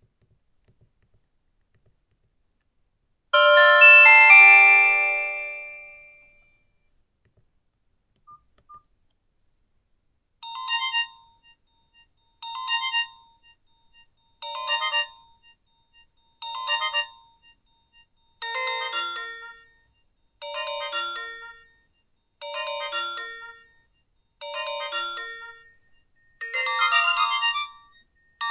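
Nokia 5310 feature phone playing its built-in ringtones: a few seconds in, a single ringing chord that fades out, then two faint blips, then a ringtone made of a short melodic phrase repeating about every two seconds, growing fuller toward the end.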